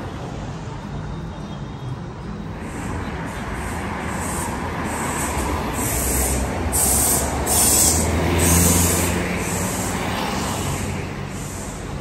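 Steady vehicle rumble with a hiss that repeats in a regular rhythm, about three times every two seconds. It grows louder toward the middle and then eases off.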